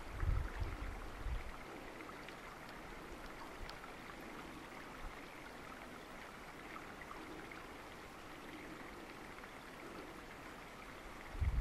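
Faint, steady rush of flowing stream water, with a few low rumbles in the first second or so.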